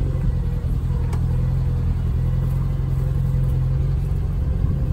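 Truck engine running steadily at low speed, a constant low hum.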